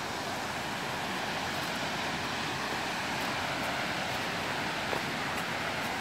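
Waterfall rushing: a steady, even hiss of falling water with no breaks.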